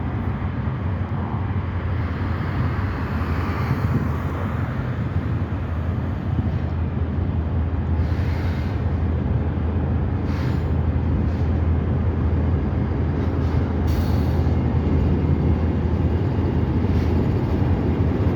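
Freight train rolling past: a steady low rumble of the cars and wheels on the rails, with a few brief higher-pitched rattles or squeals.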